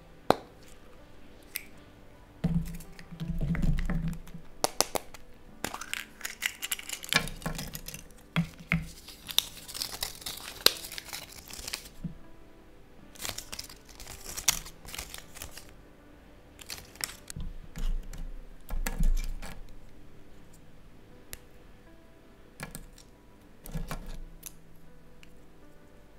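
Close-up handling of a chocolate surprise egg and its toy: a sharp crack right at the start as the egg is broken, then crinkling and tearing of paper and plastic wrap, busiest in the first half. Later come small clicks of plastic toy pieces being fitted together.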